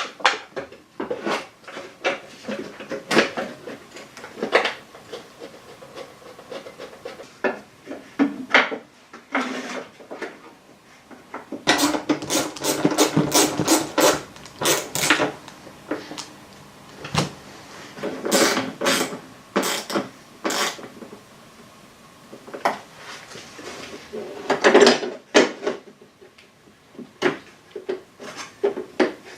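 Hand work on small metal parts: scattered clicks, knocks and scraping, with two stretches of quick repeated clicking and a louder clatter about 25 seconds in.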